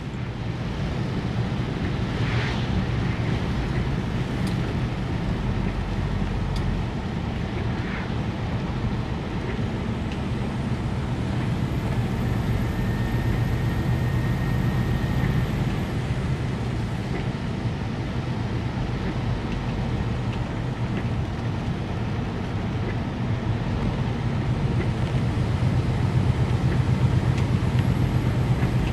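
Inside a truck cab while driving: the diesel engine's steady low drone, with tyre and road noise on a wet road.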